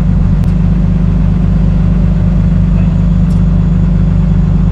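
An engine idling steadily: a loud, low drone with an even pulse, with a faint click or two.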